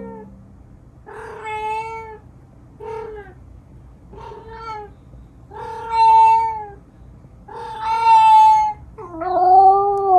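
Black cat meowing loudly and insistently, six long drawn-out meows a second or so apart, the last one falling in pitch as it ends.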